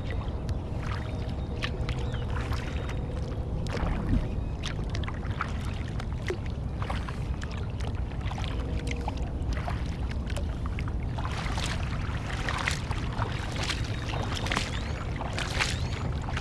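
Kayak being paddled on a lake: irregular splashes and drips of the paddle blades entering and leaving the water, over a steady low rumble. The strokes come more often in the last few seconds.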